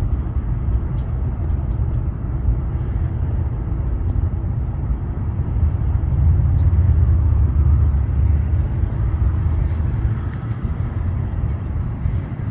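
Jet aircraft engines rumbling deeply as a plane passes, building to their loudest around the middle and easing off near the end.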